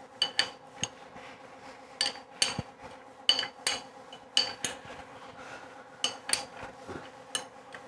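Isuzu 4JG2 crankshaft being turned by hand with connecting rods and pistons fitted, giving sharp metallic clinks, mostly in pairs about a second apart. It is a check that the crank still turns freely after the rod bolts were torqued to 50.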